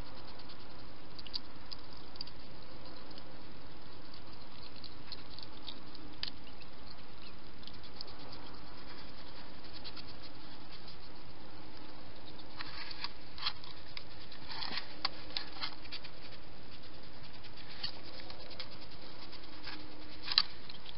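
Wild hedgehogs crunching food and rustling at a feeding station, heard as faint irregular clicks and crackles over a steady hiss. The clicks come thickest about two-thirds of the way through, and one sharper click comes near the end.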